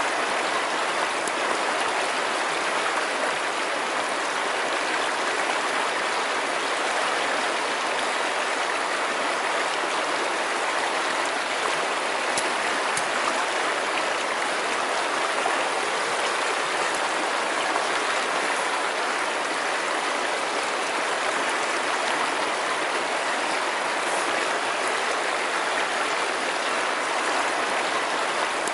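River water rushing and splashing steadily over stones: a continuous even rush.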